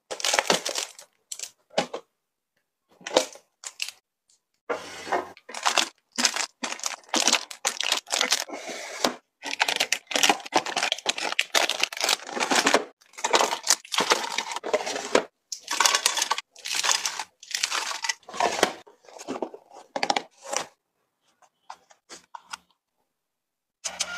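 Plastic wrappers crinkling and rustling in irregular bursts as packaged snacks are handled and stacked, with short dead-silent gaps between bursts.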